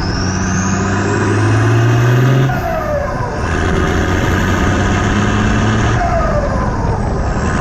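Turbocharged Nissan GQ Patrol TD42 six-cylinder diesel revved twice. The turbo whistle rises with each rev and falls away as the revs drop, at about three seconds and again at about six.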